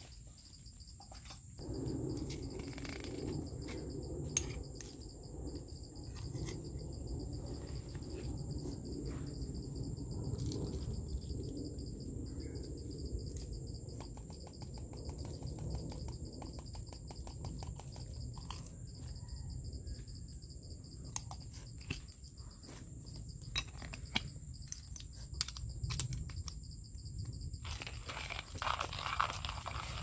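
Hand coffee grinder grinding beans: a steady low, crunching churn with fine rapid clicks, starting about two seconds in and stopping shortly before the end. Insects keep up a steady high buzz throughout.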